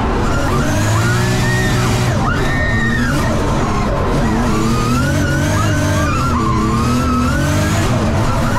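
Drift car's engine revving up and down hard through a slide, with tyres squealing, under background music.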